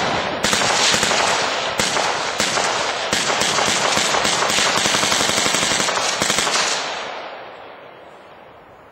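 Sustained automatic machine-gun fire in long continuous bursts with a few brief breaks, stopping about seven seconds in and trailing off.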